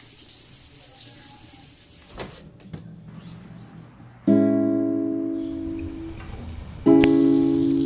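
Acoustic guitar strummed twice, about two and a half seconds apart, each chord ringing out and slowly fading. Before the first strum, a hiss of running water or rain dies away.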